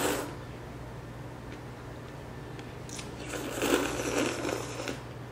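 A person slurping ramen noodles, sucking them in with air. One slurp ends just as the sound begins, and a longer one of about two seconds starts about three seconds in.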